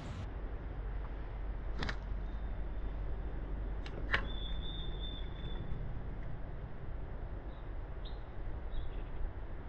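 Steady low rumble of wind on the microphone, with a few sharp clicks about two and four seconds in and a brief high whistling tone just after the second click.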